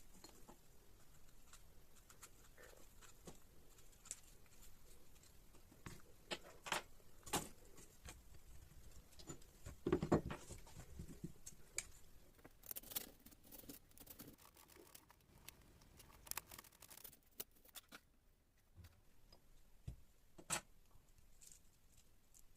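Knife cutting and slicing through tomato and onion: separate, uneven cuts, with a quicker run of strokes a little past the middle.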